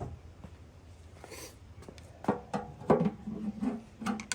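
Knocks and clatter of tools and parts being handled and set down: a few light clicks, then a quicker run of clunks in the second half, the loudest about three seconds in.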